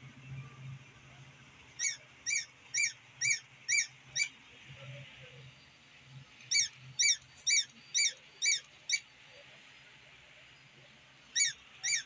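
Battery-powered plush 'Hello Cat' toy's sound chip playing short, squeaky electronic meows, about two a second, in runs of six or seven with pauses between, over a faint low hum.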